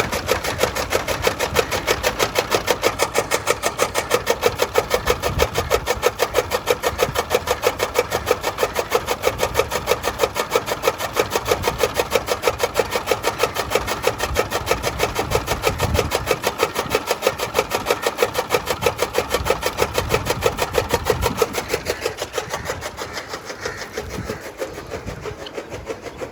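Powered toka chaff cutter running, its blades chopping fodder with a rapid, even rhythm; it gets quieter near the end.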